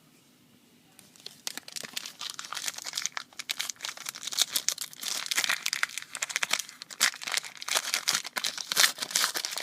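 A basketball trading card pack's wrapper being torn open and crinkled by hand, starting about a second in: dense, irregular crackling.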